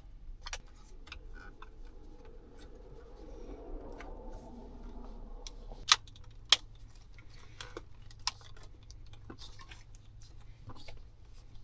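Scattered clicks and light knocks of tools and parts being handled as a steering wheel is fitted back onto a Ford F-150's steering column and its bolt tightened, with two sharp clicks about six seconds in.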